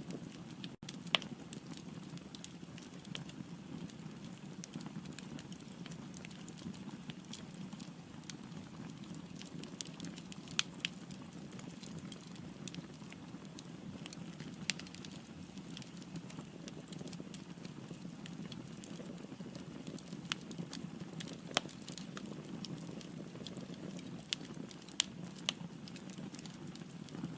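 Firewood burning in a fireplace: a steady low rush of flame with scattered crackles and a dozen or so sharper pops.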